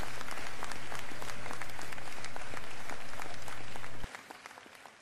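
Audience applauding, a dense patter of many hands clapping over a steady low hum; the sound drops sharply about four seconds in and fades away.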